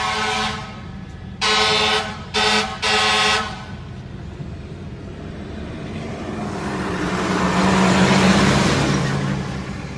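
Car horn honking: a blast that ends about half a second in, then three short blasts in quick succession. Then a vehicle passes, its engine and tyre noise swelling and fading.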